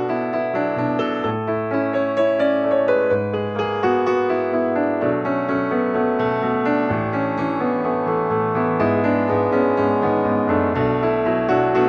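Background piano music, a gentle melody over sustained low notes.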